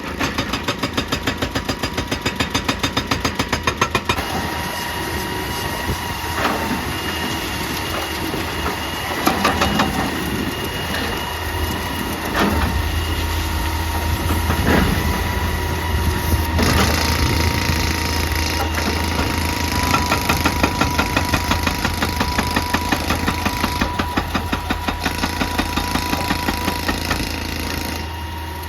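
Hydraulic excavator's diesel engine running steadily, with a hydraulic rock breaker hammering rapidly for the first few seconds and again in a short burst later on. Several separate knocks of rock and steel come in between.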